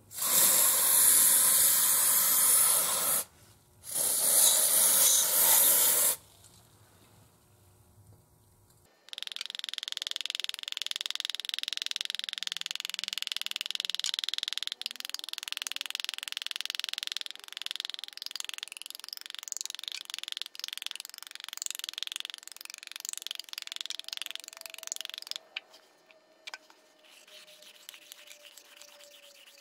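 An aerosol can sprays through its red straw in two bursts of about three seconds each, with a short break between, onto a corroded piston from a flooded engine. After a pause, a quieter hiss runs for about fifteen seconds with a few light knocks.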